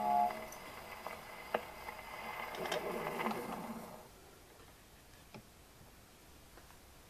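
The last sound of the 78 rpm record dies away on the HMV 101 wind-up gramophone. Then the needle runs on in the groove with surface hiss and scattered clicks and crackles. The hiss stops about four seconds in, and a single click follows a little later.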